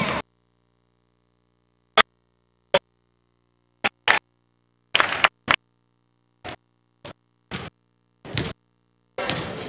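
Sounds of a basketball game in play, heard as about a dozen short, irregular bursts with dead silence between them.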